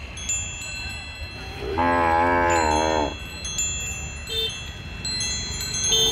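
A cow mooing once, a call of about a second with a wavering pitch, followed near the end by the start of another moo. Thin high ringing tones and a low rumble run underneath.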